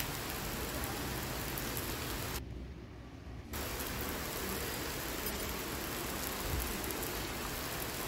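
Steady rain, an even hiss that briefly goes duller and quieter about two and a half seconds in.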